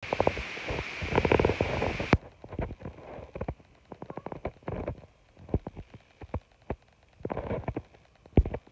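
A cat playing with a toy on a rug: irregular scratching, rustling and clicks, denser and over a hiss for the first two seconds, with one sharp knock near the end.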